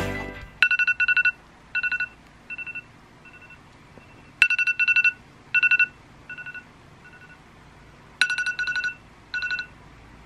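iPhone alarm ringing: a quick run of beeps followed by shorter, fading beeps, the pattern starting over about every four seconds. It stops near the end when the alarm is snoozed.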